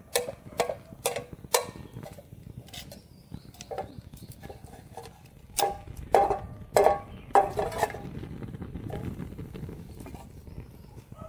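Metal tongs clinking against a frying pan and hot metal ball: sharp taps with a brief ring, about two a second at first, then a second cluster of louder taps a few seconds later, followed by a low steady rush near the end.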